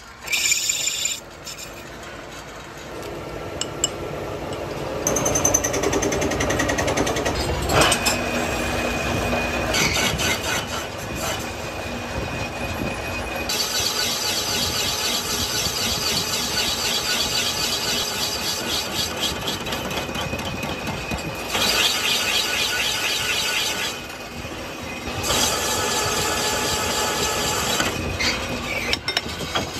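Metal lathe cutting an external thread on the barrel of a cast meat-mincer body: a steady high-pitched cutting sound with a fine, rapid chatter over the machine's running. The cutting stops briefly a couple of times between passes and eases off near the end.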